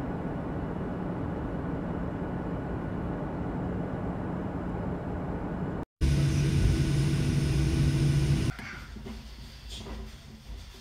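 Steady roar of an airliner cabin in flight, heard from a window seat. About six seconds in it cuts to a louder jet-engine hum with a steady low drone, with the plane on the ground. Some two and a half seconds later it cuts again to much quieter room sound.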